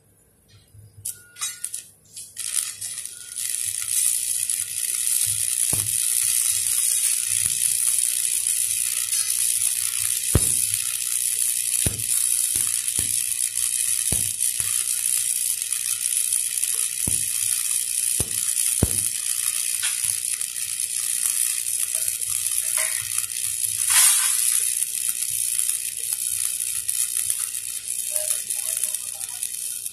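Stick (SMAW) welding arc burning on a steel pipe joint: a steady crackling sizzle after a couple of short sputters as the arc is struck about two seconds in, with occasional sharp pops.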